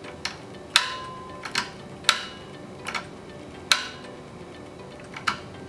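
Centrifugal start switch of a Franklin Electric capacitor-start jet pump motor clicking as its contacts are pushed open and shut by hand: about six sharp clicks at uneven intervals. In a running motor this click is the sign that the motor has come up to speed and the switch has taken the start capacitor out of the circuit.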